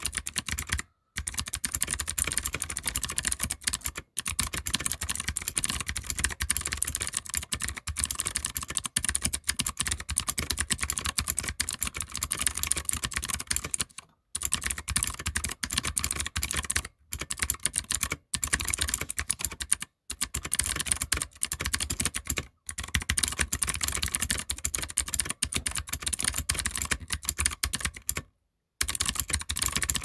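Typing on a Royal Kludge RK100 mechanical keyboard with clicky blue switches: a fast, dense run of key clicks that breaks off briefly several times.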